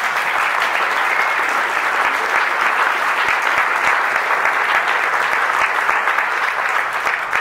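Audience applauding, a steady patter of many hands clapping together.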